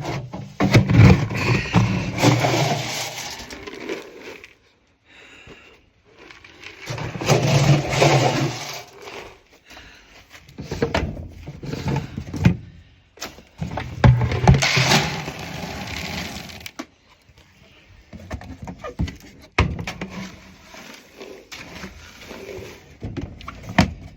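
Dry goat grain being scooped and poured into a container, rattling and scraping in several pours a few seconds long.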